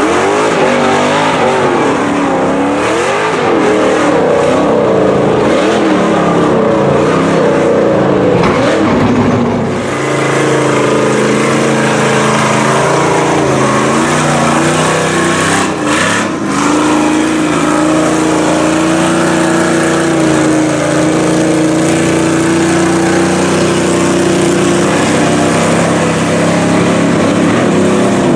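Lifted mud trucks' engines revving hard, rising and falling in pitch, as their giant tires churn through deep muddy water. After about ten seconds the engine note holds steady.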